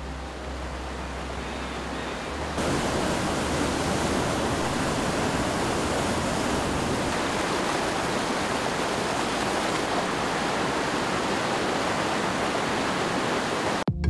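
Creek water rushing down a rock slide cascade, a steady even rush of white water. It gets louder a few seconds in and cuts off abruptly near the end.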